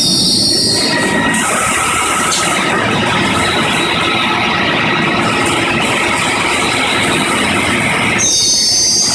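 Dixie slicing machine running: a loud, steady mechanical noise of the moving carriage and blade. A high metallic squeal rings out over it in the first second and again near the end.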